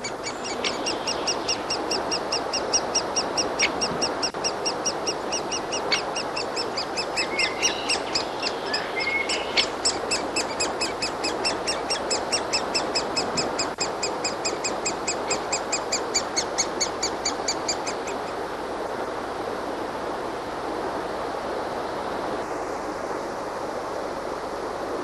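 Great spotted woodpecker nestlings begging at the nest hole: a rapid, evenly repeated chatter of high calls that breaks off about three-quarters of the way through. Underneath is the steady rush of a flowing stream.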